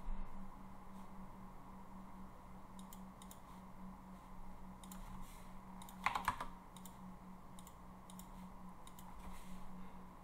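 Scattered computer keyboard and mouse clicks, with a quick cluster of clicks about six seconds in, over a steady low hum.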